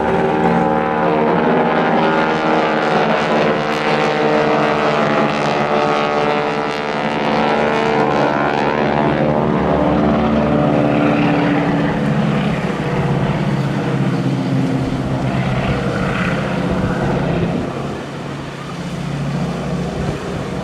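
Propeller-driven biplanes' radial engines droning on a fly-past, the engine note sliding down in pitch as they pass, then fading and thinning out later on.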